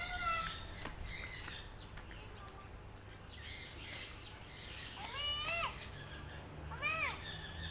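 Two short bird calls, each rising and then falling in pitch, about five seconds in and again near seven seconds, over a steady low background rumble.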